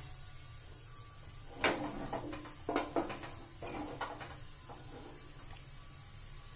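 A spoon knocking and scraping against a metal pan of grated carrots in milk: a cluster of uneven knocks from about a second and a half to four seconds in.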